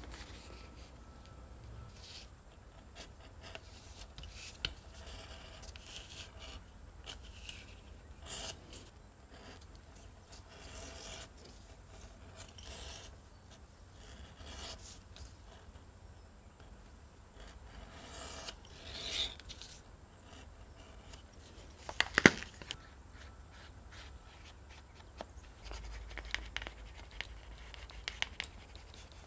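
Quiet leather handwork: a blade drawn along a template, cutting and scraping the leather, with scattered rubbing and handling of the pieces. One sharp click about three-quarters of the way through.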